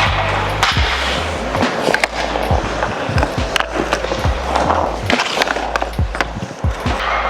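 Background music with a heavy, stepping bass line, over ice hockey skates scraping and carving on the ice and frequent sharp clacks of stick on puck.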